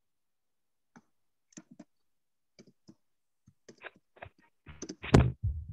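Computer keyboard typing: scattered key clicks that come closer together toward the end, with one louder, deeper knock near the end.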